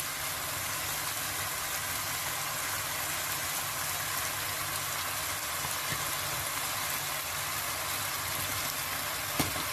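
Steady hiss with a low hum from a pan of pasta cooking over a gas burner, with a single light knock near the end.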